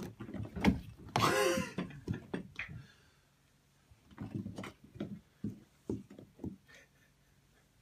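A cat playing with a small ball on carpeted stairs: soft thumps and knocks from its paws and the ball, in a cluster near the start and a longer run in the second half. A brief loud voice cuts in about a second in.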